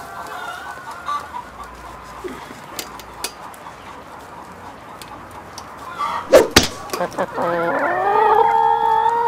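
Chickens clucking faintly, then a few sharp knocks about six seconds in, followed by a man's long, drawn-out cry of pain held on one pitch for about two seconds.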